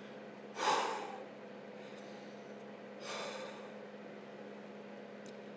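A man taking two deliberate deep breaths: a loud rushing breath about half a second in, then a softer one about three seconds in. A steady low hum runs underneath.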